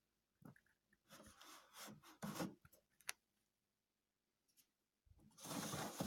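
Irregular rubbing and scraping sounds with a few sharp clicks, a pause in the middle, then a longer, louder scrape near the end.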